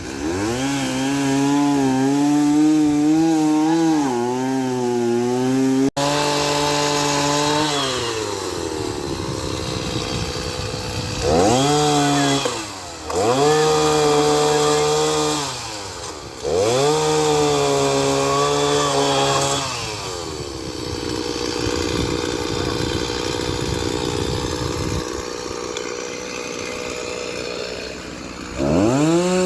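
Gas chainsaw revving up and held at high speed for several seconds at a time, cutting through downed trees, dropping back to idle between cuts about four times.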